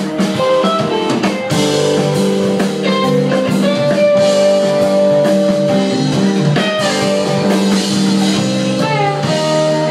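Live rock band jamming: electric guitars over bass guitar and a drum kit, loud and steady, with held notes and a moving guitar line.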